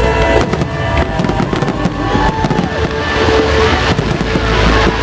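Fireworks going off: a dense series of sharp bangs and crackles, thickest about half a second in and again near the end.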